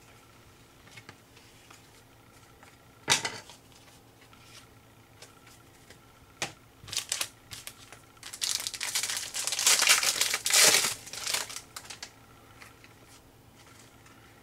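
Foil wrapper of a 2011-12 Rookie Anthology hockey card pack being torn open and crinkled. A single sharp rip comes about three seconds in, then a few short crackles, then several seconds of loud crinkling and tearing in the second half.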